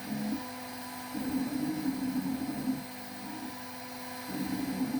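Router spindle of a shop-built KRMx02 CNC machine running at 15,000 RPM, a steady hum, while a 20-degree V-bit engraves lettering into Baltic birch plywood. Rougher, wavering stretches of cutting and motion noise come and go, from about a second in to nearly three seconds, and again near the end.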